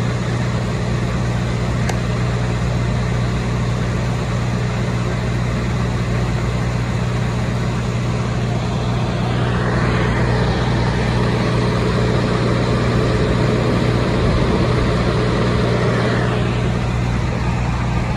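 Kleemann MS 13 Z mobile screening plant running, with a steady low engine drone as its conveyor belt moves. A louder rushing noise swells about ten seconds in and again near sixteen seconds.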